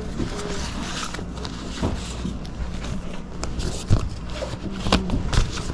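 Cardboard vinyl record jackets being flipped through by hand, sliding against one another and knocking together, with a few sharper knocks about four and five seconds in.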